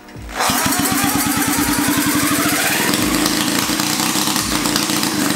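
A freshly rebuilt 1975 Sachs KC27 294cc single-rotor Wankel engine, from a Hercules W2000 motorcycle, is spun over with a cordless drill and catches about half a second in. It then keeps running in rapid, even firing pulses, with a rising whine over the first couple of seconds. The engine has low compression.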